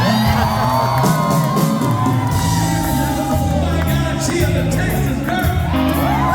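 Country band playing live with a singing voice over guitars, bass and drums, long held notes that bend in pitch. Shouts and whoops from the crowd rise above the music.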